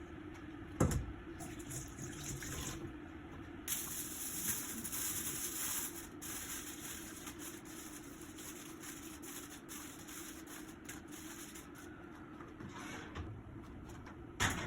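Kitchen tap running into a sink for a couple of seconds over a steady hum, with a sharp knock about a second in and another near the end.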